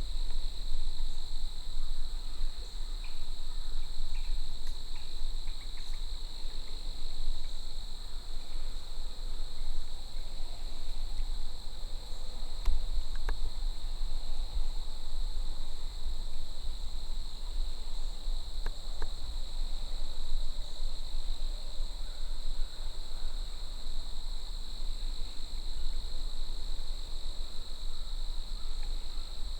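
Steady insect chorus, one continuous high trill with no breaks, over a low rumble. A few faint short chirps come through here and there.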